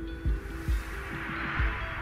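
Background music with a steady low beat about twice a second under held synth tones, and a hiss that swells up and fades away a little past halfway.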